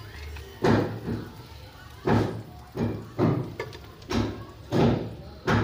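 A serving spoon scooping boiled long-grain rice and dropping it onto a plate, with about seven dull thuds spaced under a second apart.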